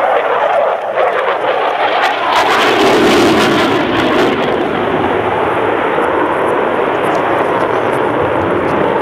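Jet aircraft noise: a steady, loud rushing roar that fills in lower and grows slightly louder about two seconds in.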